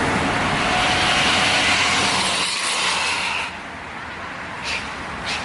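Road vehicle passing close by: a loud rush of tyre and engine noise that drops away abruptly about three and a half seconds in, followed by a couple of short clicks.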